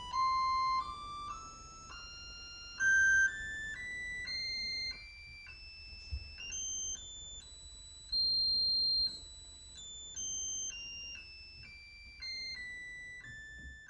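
A metal can driven by a magnetic actuator, sounding a run of single pure notes that step up in pitch for about eight seconds and then step back down. A few notes ring out much louder than the others, where the driving frequency matches one of the can's resonant frequencies.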